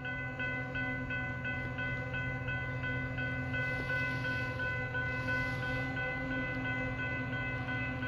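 Railroad grade-crossing bell ringing at an even pace of about three strikes a second, the signal that the crossing is active for an approaching train. A steady low hum runs underneath.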